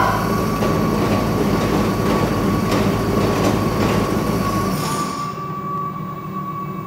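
The auger of a Toro Power Max e26 HA 60-volt electric two-stage snowblower spinning freely with no snow, a steady mechanical whir over a low hum. It winds down and stops about five seconds in.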